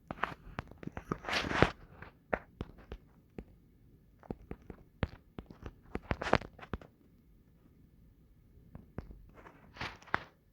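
Handling noise close to a phone's microphone: irregular sharp clicks and short rustles, bunched in the first couple of seconds and again about six seconds in, dying down before a few more near the end.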